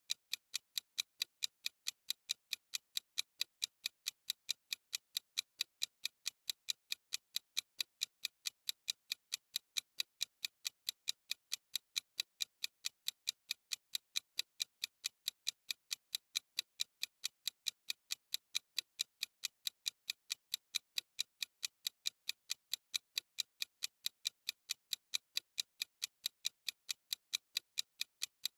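Clock ticking sound effect: steady, evenly spaced crisp ticks at an unchanging pace.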